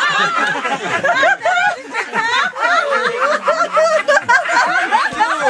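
Several elderly Buddhist nuns laughing together, their voices overlapping, with some talk mixed in.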